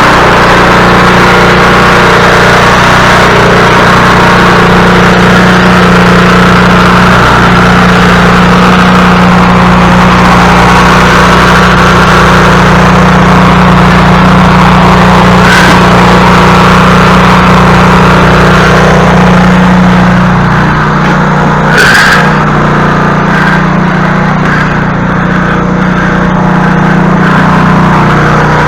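Snow thrower's small engine running steadily. Its note shifts slightly about two-thirds of the way through, and there are a couple of brief sharp clicks.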